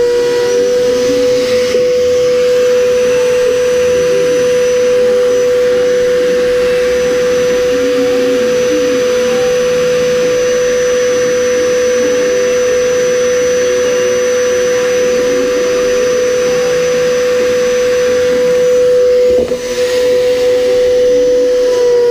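Small high-speed electric shop motor running steadily with a loud, constant high whine, faltering briefly near the end.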